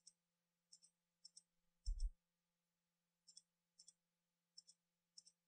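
Faint computer-mouse button clicks, each a quick press-and-release pair, about seven in all at irregular spacing, with one low thump about two seconds in.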